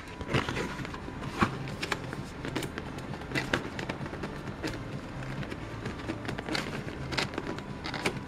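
Cardboard box being handled and turned in the hands: scattered light taps, scrapes and rustles of fingers on the cardboard, with a faint steady low hum beneath.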